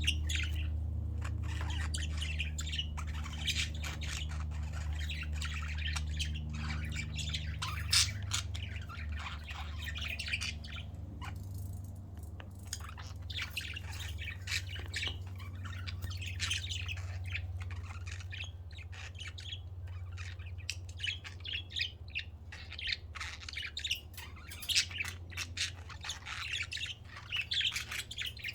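Budgerigars chirping and chattering, a steady stream of quick high chirps and squawks, over a low steady hum that fades somewhat after the first several seconds.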